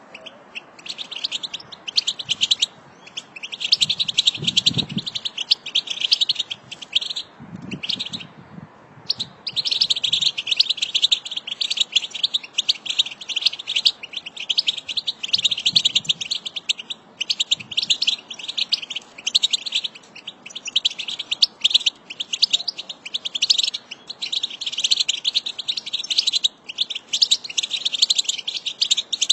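A flock of European goldfinches chattering and twittering, a dense run of rapid high calls with short breaks near the start and about eight seconds in.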